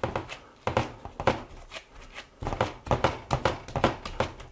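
Gloved hands pressing and patting minced-beef meatloaf mixture down into a cast-iron loaf pan: irregular slaps and taps, a few a second.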